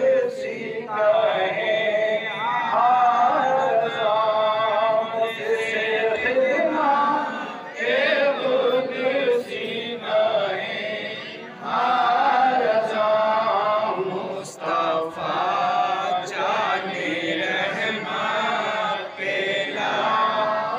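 A man's voice chanting a melodic devotional recitation into a microphone over a PA, in long drawn-out phrases broken by short pauses for breath.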